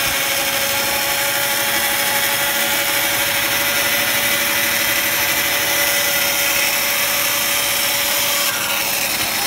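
Bandsaw ripping a timber board lengthwise, the blade running steadily through the wood with a constant whine over the cutting noise. The sound shifts slightly near the end.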